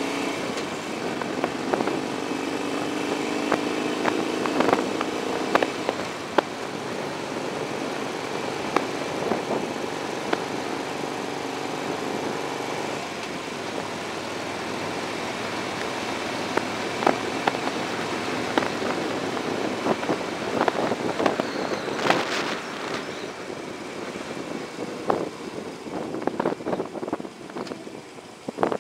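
Motorbike engine and wind noise heard from the bike while riding: the engine note rises in the first few seconds as it speeds up, then fades into a steady rush of wind and road noise with scattered clicks. It gets quieter near the end as the bike slows.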